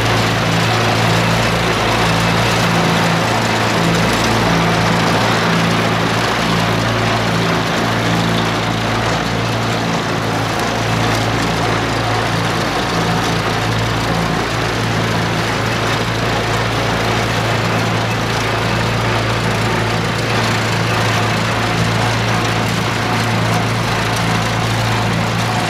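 1948 Farmall Cub's four-cylinder engine running steadily under load, driving its belly-mounted mower through grass and brush. The engine hum holds an even pitch throughout.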